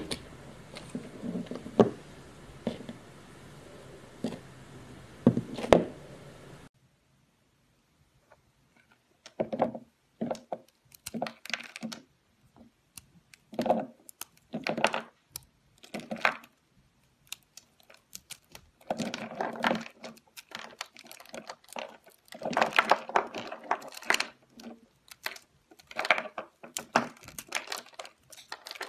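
A knife slicing through a block of soap, a few crisp cutting strokes over a faint hiss. After a short silence, hands break and crumble a crunchy chunky bar, with irregular bursts of crackling crunches that come and go.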